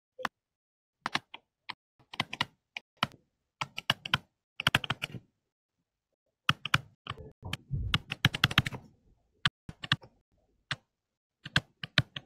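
Pen stylus tapping and scratching on a tablet touchscreen while hand-writing: irregular clusters of sharp clicks, with a pause of about a second midway.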